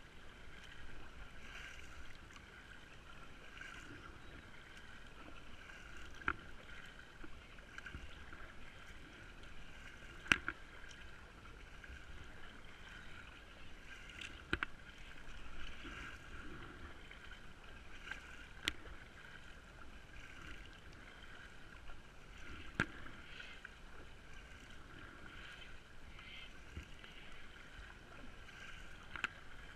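Kayak paddling on calm water: faint steady water noise, with a sharp click or knock about every four seconds.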